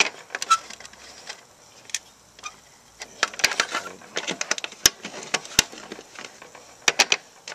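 Irregular sharp metallic clicks and taps, some in quick clusters, as finger-tight nuts are unscrewed by hand and the sheet-metal parts of a homemade wood stove are handled.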